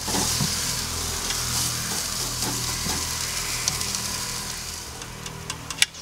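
Steaks searing on a hot charcoal kamado grill grate, sizzling steadily and slowly fading. One steak is turned with metal tongs as it begins, and there are a couple of sharp clicks near the end.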